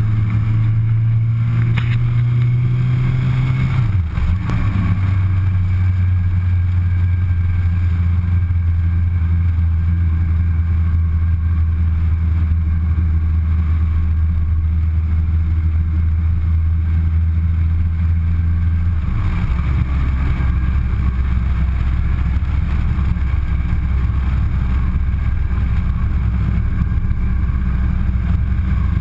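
Suzuki Hayabusa motorcycle's inline-four engine running while riding, a steady low drone. Its pitch steps down about four seconds in, with a brief dip in level, and steps down again about two-thirds of the way through.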